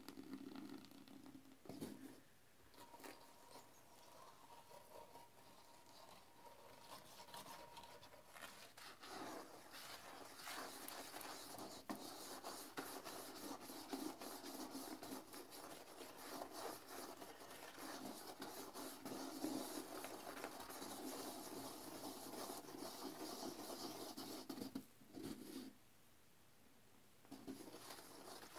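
Liquid cleaner poured in a stream into the water of a porcelain toilet bowl, then a toilet brush scrubbing the sudsy bowl with a continuous wet swishing and scraping. The scrubbing stops briefly near the end and resumes.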